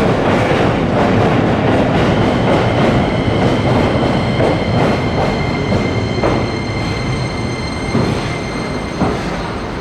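Keikyu electric train running past the platform, a loud rumble that slowly eases off. A steady high whine sets in about two seconds in and fades out near the end, and a few sharp clacks of the wheels over rail joints come in the second half.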